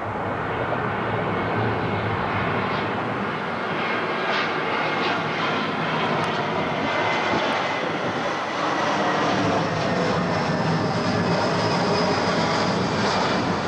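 JetBlue Airbus A320 airliner's IAE V2500 jet engines at approach power as it passes low overhead with gear down on final approach: a steady jet roar with a faint high whine over it, growing a little louder as the plane comes overhead.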